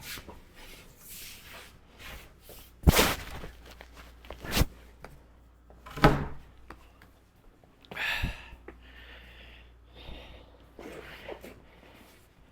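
Knocks and thumps of a large plywood sheet being shifted and set into place, about five sharp bangs with quieter scraping and shuffling between.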